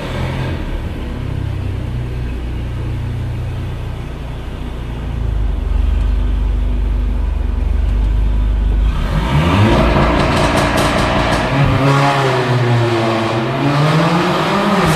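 Mercedes-AMG GLA 45's turbocharged four-cylinder engine doing a launch-control start. A steady low rumble for about nine seconds, then full-throttle acceleration with the engine note climbing in pitch, dropping sharply at two upshifts and climbing again.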